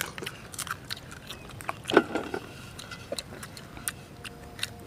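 Two people biting and chewing slices of papaya: a string of short, sharp, wet mouth clicks and crunches, with a louder bite about two seconds in.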